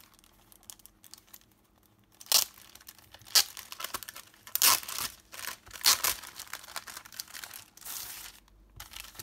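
Clear plastic crinkling and crackling as a Hobonichi Cousin clear cover-on-cover and its plastic sleeve are handled and flexed. After about two quiet seconds come several sharp crackles, the loudest about two and a half, three and a half, four and a half, and six seconds in, with smaller ones until near the end.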